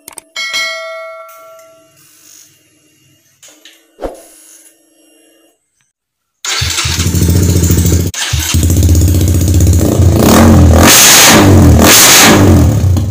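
Honda RS150 motorcycle's single-cylinder engine started on the electric starter button about six and a half seconds in, catching at once and running loud through an aftermarket exhaust, then revved three times near the end. Before it, a short chime.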